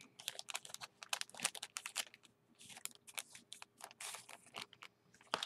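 Clear cellophane bag crinkling in the hands as paper bag toppers are slid out of it: a quick, irregular run of small crackles.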